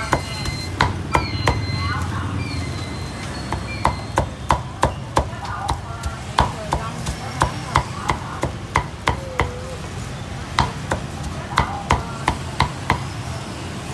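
Cleaver chopping roast pork in quick, sharp strokes, about two a second, with a short pause about two-thirds of the way through.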